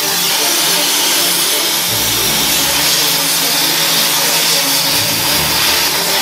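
Oxy-fuel cutting torch hissing steadily as it cuts through a car's steel subframe, with a low rumble that comes and goes underneath.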